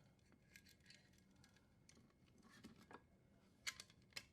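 Faint, scattered clicks and light rustling of electrical wires being handled and fed through a metal junction box, with two sharper clicks near the end.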